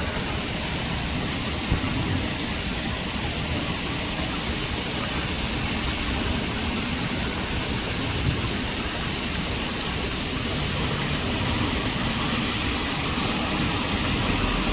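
Heavy rain pouring down in a steady hiss during a thunderstorm downpour.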